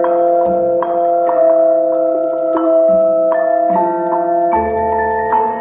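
Instrumental music of sustained, ringing notes in soft chords that change every half second to a second.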